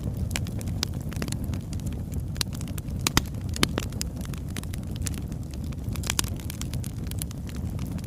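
Wood fire burning, with a steady low rumble of flames and frequent sharp crackles and pops from the logs, the loudest pops a little after three seconds in.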